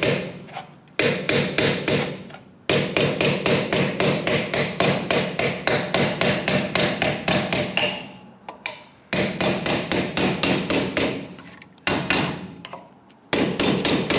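Hand hammer rapidly striking a corking tool held against sheet metal clamped in a hammer die, bending the quarter-inch border over the form's edge. Quick runs of sharp metallic blows, about four or five a second, broken by several short pauses.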